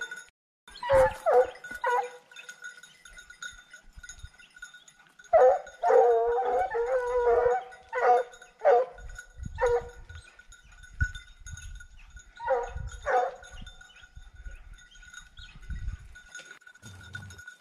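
Boar-hunting hounds baying in bouts of drawn-out, wavering cries: a pack giving tongue during a wild boar drive.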